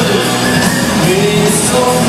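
Loud live band music in a rock/pop style, with a singing voice over it.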